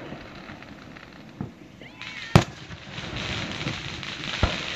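Fireworks shells bursting in the air: a faint bang about one and a half seconds in, a loud sharp bang around two and a half seconds, and another near the end, with a spread of crackling from about three seconds on.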